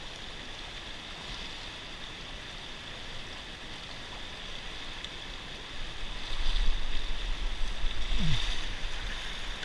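Fast river water rushing past the boat, a steady hiss. From about six seconds in it grows louder, with a low rumble and splashing as the landing net goes into the water after the fish.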